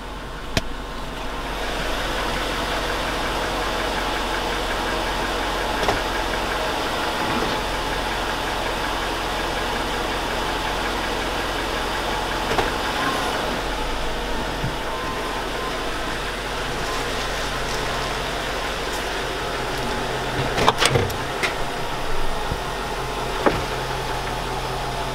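2002 Chevy Avalanche's 5.3L V8 running steadily with a knock in it, which the owner takes for worn lifters and rod knock both. A few sharper clicks stand out about three quarters of the way through.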